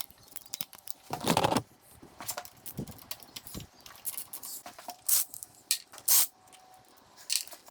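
Hand tools and small metal parts clicking and knocking against a Yamaha XS650 engine's gear-selector mechanism while the selector-shaft lock plate is being taken off, with a longer metallic rattle about a second in.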